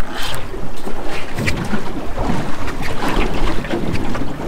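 Wind rushing over the microphone with sea water washing around a small boat, an uneven noisy rush with no clear mechanical tone.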